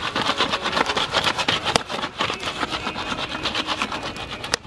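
Jiffy Pop foil popcorn pan being shaken over a campfire: a fast, rhythmic rattle and scrape, with the kernels not yet popping. It cuts off suddenly near the end.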